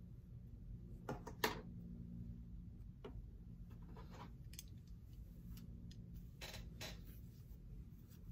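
Hair-cutting shears snipping through wet hair: a handful of quiet, separate snips, the sharpest about one and a half seconds in.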